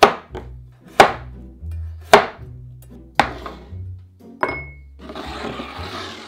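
Chef's knife cutting through a banana and striking a wooden end-grain cutting board, five sharp chops about a second apart, the last with a glassy clink. Near the end comes a sliding, rustling noise as the pieces are moved into a glass bowl. A music bed with a steady bass line plays underneath.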